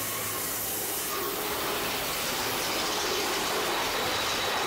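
Mine-train roller coaster running along its track: a steady rushing, rumbling noise of the train in motion.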